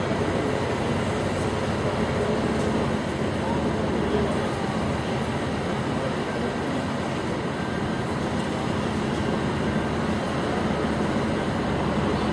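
Diesel engine of a competition trial truck running steadily as the truck creeps along, with spectators' voices in the background.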